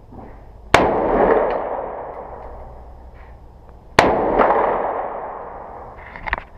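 AR-15 rifle firing two single shots about three seconds apart, each a sharp crack followed by a long echo that fades over about two seconds.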